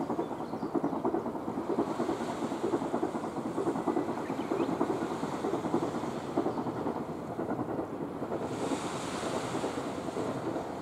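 Small waves washing onto a sandy beach, a steady rumbling surf noise with wind buffeting the microphone; about eight and a half seconds in, a brighter hiss swells as a wave runs up the sand.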